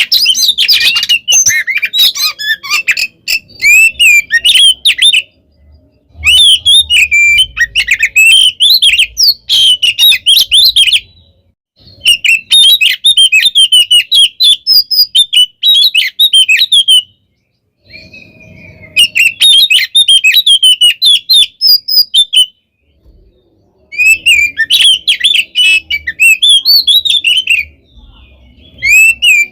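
Oriental magpie-robin (kacer) singing a loud, rapid, varied song of chirps and sweeping notes in bouts of a few seconds, with short pauses between them. It is the agitated, fighting-style song that keepers play to provoke other magpie-robins into answering.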